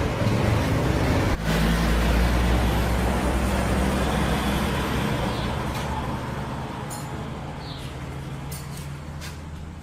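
A vehicle engine running with a steady low hum; about a second and a half in it changes with a sharp click, then the sound slowly fades away, as of the vehicle moving off.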